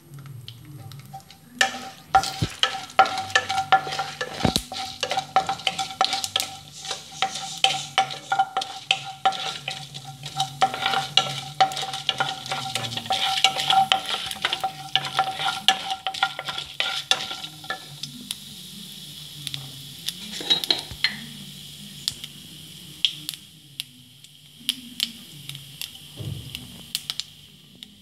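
Wooden spatula stirring and scraping lentils and seeds frying in oil in a nonstick kadai, over a steady sizzle. A steady tone hums under the stirring until about two-thirds through, after which the stirring thins to occasional knocks over a quieter sizzle.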